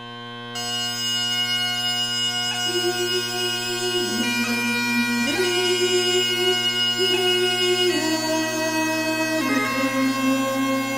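Great Highland Bagpipe: the drones fade in, steady and low, and the chanter enters about half a second in. It plays a slow pibroch melody in long held notes, broken by quick grace notes.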